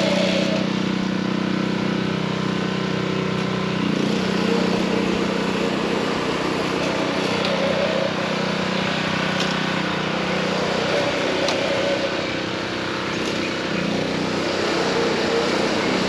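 The small gas engine of a California Trimmer reel mower running steadily under mowing load, its note shifting briefly about four seconds in and again around twelve seconds.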